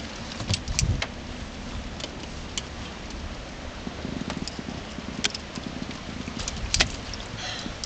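Metal clicks and knocks of a fish lip gripper and tackle being handled, over a low pulsing drumming from a redfish held on the gripper, most noticeable in the second half.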